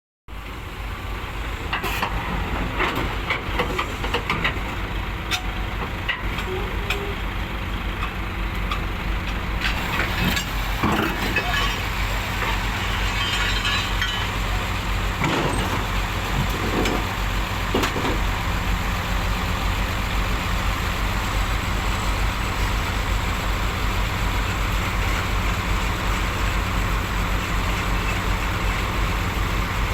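Heavy diesel engines of a Komatsu D65PX bulldozer and an Isuzu Giga FVZ34T truck running steadily during loading, with scattered metallic clanks and knocks through the first half and a burst of hiss about ten seconds in.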